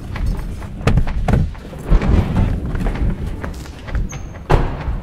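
Low rumbling background score with several heavy thuds, the loudest a car door being shut near the end.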